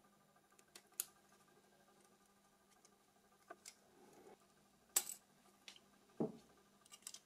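Scattered small clicks and taps of a Nokia 6300 phone's parts being handled as the phone is taken apart and its protective cover is pried off. The sharpest click comes about five seconds in, with a duller knock soon after.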